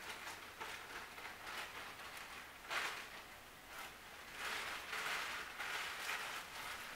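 Wheels of a long train of freight covered hopper cars rolling over the rails, heard faintly as an uneven hiss with clicks and clatter that swells and fades as the cars pass.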